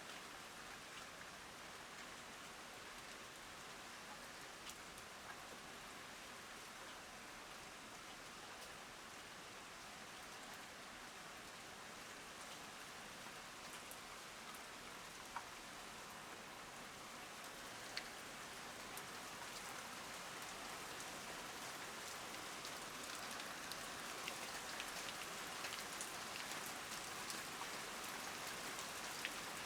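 Heavy rain falling steadily, with single drops ticking sharply close by. The rain grows a little louder about two-thirds of the way through.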